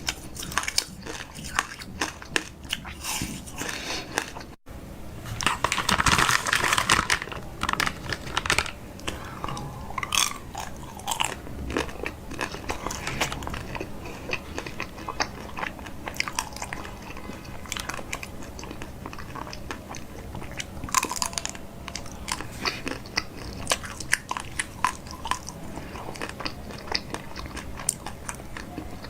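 Close-miked eating: a person biting and chewing food with crisp, crunchy bites and many small wet clicks. About six seconds in there is a louder noisy stretch lasting roughly two seconds.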